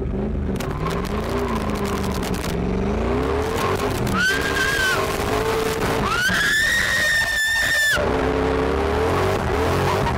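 Drift car engine revving up and down through a slide, with tyre skid noise. The woman riding as passenger screams with joy twice over it: briefly about four seconds in, then a longer, high scream from about six to eight seconds.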